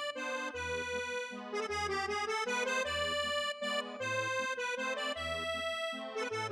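Background instrumental music: a held, keyboard-like melody over a bass line that moves to a new note about once a second.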